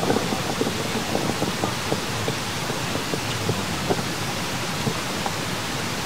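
Steady rushing outdoor noise with faint, scattered small crackles throughout.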